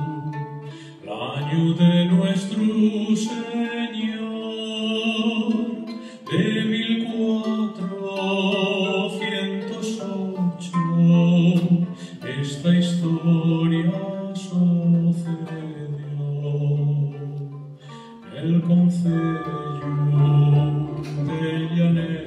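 A man singing in long held phrases, accompanied by a plucked rota (a reconstructed medieval harp-psaltery) and a chamber string orchestra.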